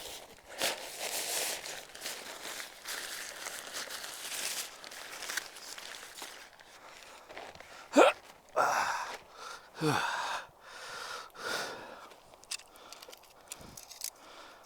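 Nylon tent fabric rustling as a tent pole is fed through its sleeve, with a couple of short squeaky scrapes about halfway through.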